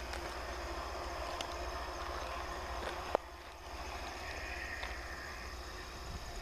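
Loram rail grinder train running in the distance, a low steady rumble under a constant high drone of insects. A single sharp click about three seconds in, after which the sound briefly drops.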